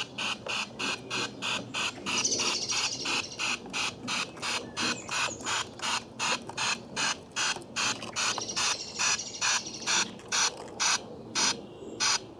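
LGB Stainz model steam locomotive running on battery power, giving a steady steam-style chuff that slows from about three beats a second to under two as it draws to a stop. Birds chirp behind it.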